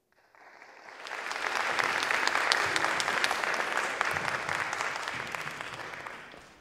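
Audience applauding: many hands clapping, swelling up about a second in and dying away near the end.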